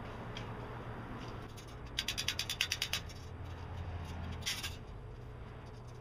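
Metal enclosure poles and connectors rattling as they are handled: a quick run of rattling clicks about two seconds in, lasting about a second, then one short rattle a little later, over a steady low rumble.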